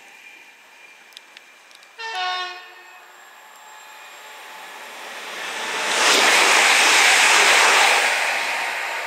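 A train horn sounds a short two-tone blast, a higher note then a lower one, about two seconds in. Then a Class 350 Desiro electric multiple unit runs through at speed: its rush of wheels and air builds, is loudest for a couple of seconds, and fades as it passes.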